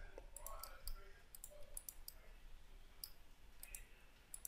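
Faint, irregular clicking of a computer mouse and keyboard.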